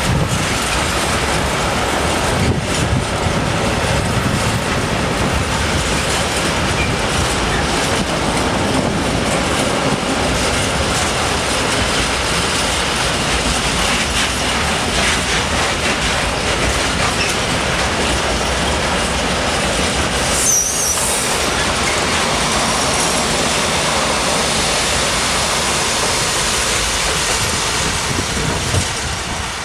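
Freight train of railway tank wagons rolling past close by: a steady rumble with wheels clattering over rail joints, and a brief high wheel squeal about two-thirds of the way through. The sound eases slightly near the end as the last wagons approach.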